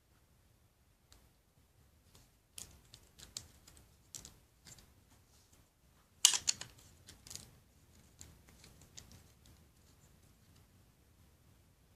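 Plastic LEGO bricks clicking and rattling as they are handled and pressed onto a model by hand, in a string of short irregular clicks, the loudest about six seconds in.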